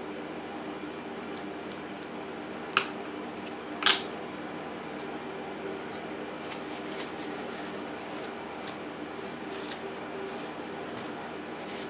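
Hand-tool work on a wooden picture frame: two sharp clicks about a second apart, then faint small clicks and taps, over a steady low hum.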